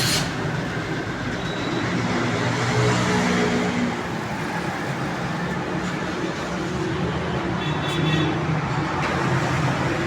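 Steady motor-vehicle noise: engines running amid road traffic, with no single event standing out.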